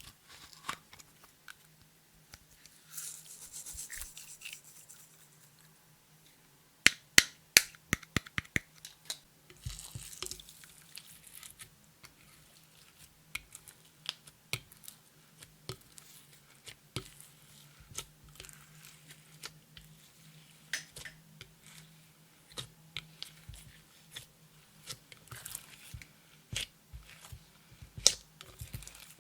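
Clear slime being worked by hand, kneaded, stretched and squished, giving irregular sticky clicks and pops, with a quick run of sharp pops about seven seconds in and short hissy rustles around three to four and ten seconds in.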